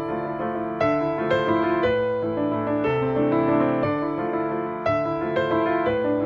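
Background music: piano playing gentle sustained chords, with new notes struck about once a second.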